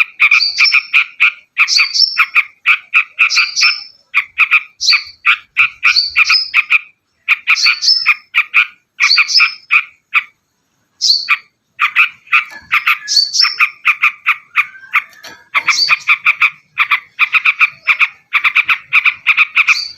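Terucuk (yellow-vented bulbul) singing: short bubbling phrases about one a second, each a fast run of chattering notes with a sharp upward note, broken by a pause of about a second near the middle.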